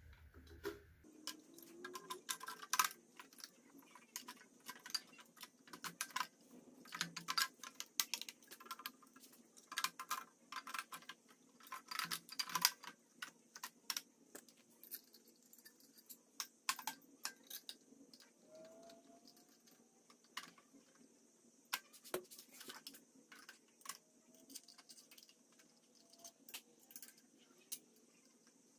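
Irregular metallic clinks, taps and rattles of ceramic-coated steel header tubes and bolts being handled and fitted against an engine's cylinder head, coming in bunches of quick clicks.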